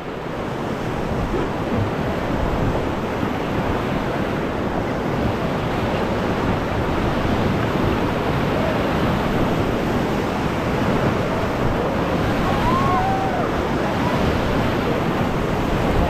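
River rapids rushing in a steady, loud roar of white water, with wind buffeting the microphone. A couple of faint calls rise over it in the second half.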